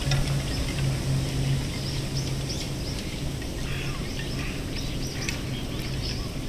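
Wind at an outdoor rack of wooden ema plaques, the hanging plaques knocking together in a light, scattered clatter, with small birds chirping now and then over a low steady hum.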